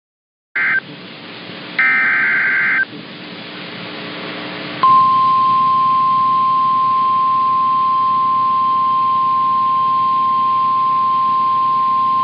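Emergency Alert System header on NOAA Weather Radio: two short raspy data bursts in the first three seconds, the end of the digital SAME code that opens a new warning. About five seconds in, the steady single-pitch 1050 Hz weather radio warning alarm tone starts and holds, over faint radio hiss.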